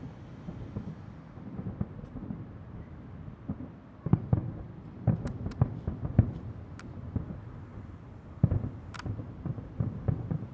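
Aerial firework shells bursting in a rapid, uneven string of booms and sharp cracks over a low rumble, growing denser about four seconds in.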